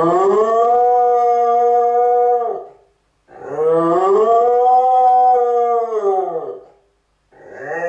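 Cardigan Welsh Corgi howling: long drawn-out howls, each rising and then falling in pitch, with short pauses for breath between them; a new howl starts near the end.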